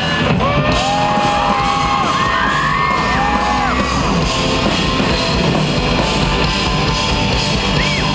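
Rock band playing live: electric guitars, bass and drums, loud and dense. Long held vocal lines glide in pitch over the band during the first few seconds, and once more near the end.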